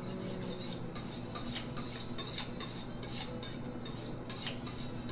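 A steel kitchen knife honed on a sharpening steel: quick metal-on-metal scraping strokes, about four a second.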